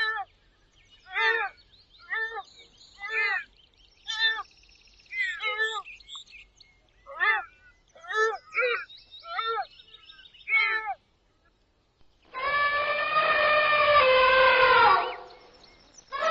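Gazelle calls: a run of short, harsh bleating calls about one a second, each dropping in pitch. Near the end come longer, louder drawn-out calls that slowly fall in pitch.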